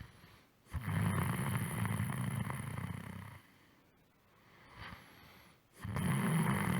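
A person snoring loudly with a rattling snore on each breath in. The first snore lasts about two and a half seconds, a quieter breath out follows, and a second snore starts near the end.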